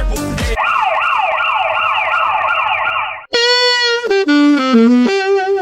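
Edited meme audio. A dance beat cuts off, then a wavering, siren-like electronic tone rises and falls about three times a second for roughly two and a half seconds. After a short break, a reedy wind instrument plays a short melody of a few stepping notes.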